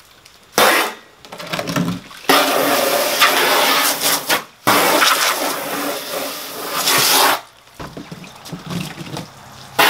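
Garden hose spray nozzle spraying water into a plastic storage tote to rinse it out, water splashing against the plastic. A short spurt about half a second in, then two long sprays about two to seven and a half seconds in, after which the flow is quieter and patchier as the tote is tipped and water pours out.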